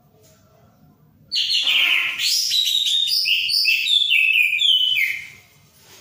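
Caged orange-headed thrush (anis merah) in full song: a loud burst of song starting about a second in and lasting about four seconds, opening with rough notes and running on in quick, varied high whistled phrases.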